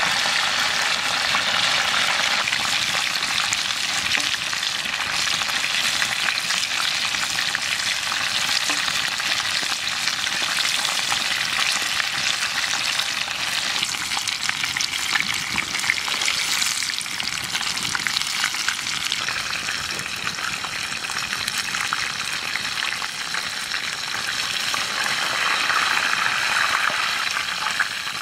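Chicken frying in hot fat in a skillet over an open wood fire: a steady, dense sizzle with fine crackles throughout.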